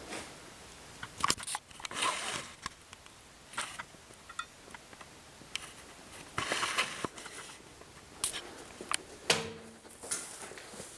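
Irregular crunches, rustles and clicks of someone moving through a room full of clutter: footsteps on debris and cardboard and things being brushed and shifted. There is a short creak about nine seconds in.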